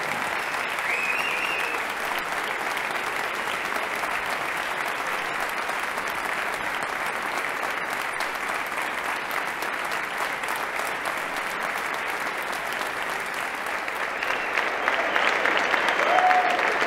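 Audience applauding steadily, with a few brief voices heard over the clapping; the applause grows a little louder near the end.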